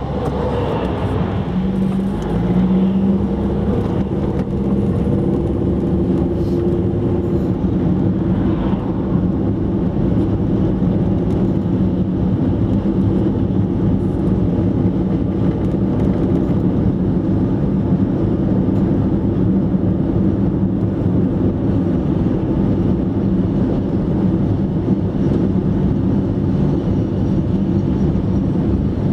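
Steady engine and tyre noise of a car being driven at speed, heard from inside the car.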